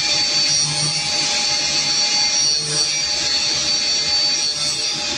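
Automated PCB processing machine running: a steady whirring hiss with a high-pitched whine held over it and a low hum that comes and goes.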